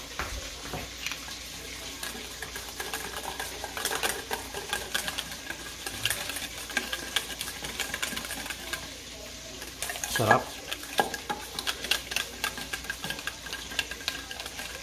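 Wire whisk beating a ketchup-and-Tabasco buffalo sauce in a stainless steel bowl, starting about a second in. It makes a fast, continuous run of clicks and scrapes as the wires strike the metal bowl.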